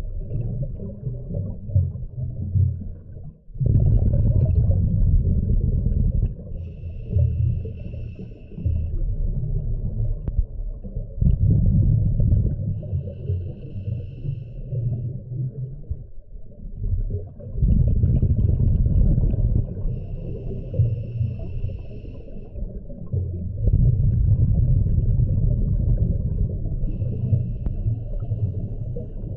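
Scuba diver breathing through a regulator underwater: rumbling bursts of exhaled bubbles alternate with a thin, high whistling hiss on each inhale, about four breaths in all, roughly every six seconds.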